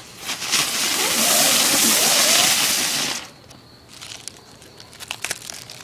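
A small ground firework hissing loudly as it burns and sprays for about three seconds, then cutting off suddenly, followed by a few scattered crackles.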